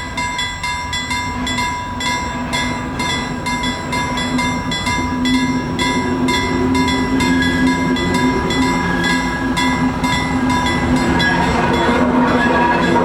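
Freight train hauled by a T44 diesel locomotive moving along the track: a steady whine with fast, regular clicking, growing louder toward the end.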